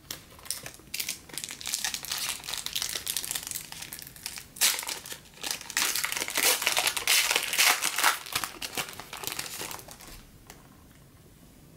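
Foil wrapper of a trading-card pack crinkling and crackling as it is handled and opened, getting louder about halfway through and dying away near the end.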